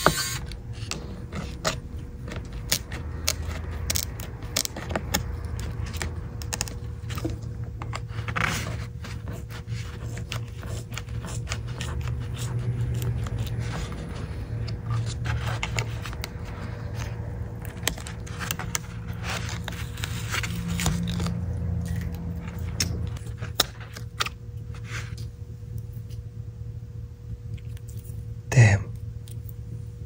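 Small repair tools clicking and scraping against the parts of an opened iPad, many short irregular clicks over a steady low hum, with a louder knock near the end.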